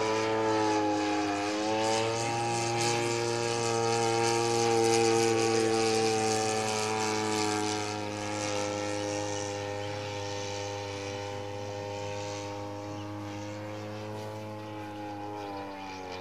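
Engine and propeller of a radio-controlled Top Flite F4U Corsair model in flight, a steady droning note. It dips in pitch about a second in, then slowly falls in pitch and fades over the second half as the plane flies away.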